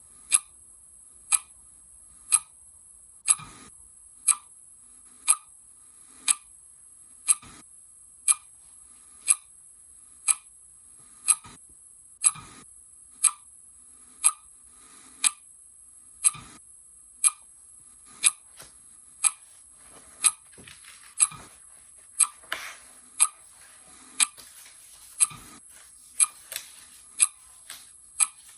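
Clock ticking steadily, one sharp tick a second. Faint small rustles and knocks come in between the ticks near the end.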